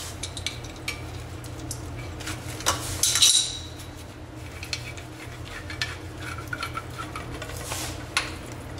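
Metal hand tool clicking and clinking against a braided faucet supply hose and its fitting at a wall angle valve, with a louder cluster of sharp metallic crunches about three seconds in as the old hose is cut free.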